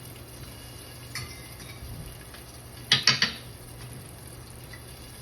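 Kitchen utensils clinking against plates and dishes as bacon is plated: a faint click about a second in, then a quick run of three sharp clacks about three seconds in, over a low steady hum.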